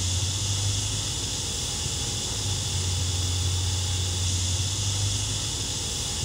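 TIG welding arc burning steadily on titanium tubing: an even hiss over a low hum.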